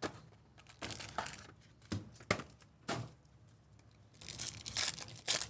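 Trading-card packaging being torn open: a Panini Select box and its foil pack wrapper crinkling and tearing in several short bursts, with a longer, louder run of tearing near the end.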